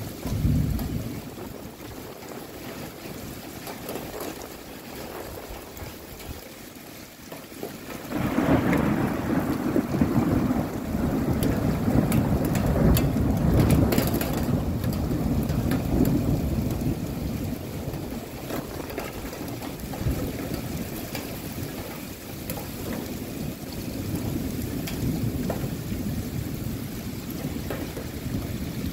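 Rain falling steadily in a thunderstorm, with a short low thump just after the start and then a long roll of thunder that sets in about a third of the way through, is loudest near the middle and slowly fades.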